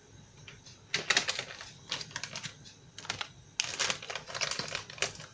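Foil-lined packet of ground ginger crinkling and rustling as it is picked up and handled: a run of sharp crackles starting about a second in, a short lull, then more crackling from about three and a half seconds.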